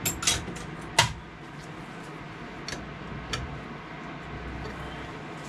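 Metal clicks and knocks as a diesel injector's pipe union is screwed onto a hand-lever injector test pump, the loudest about a second in and a few lighter ones after it, over a low steady hum.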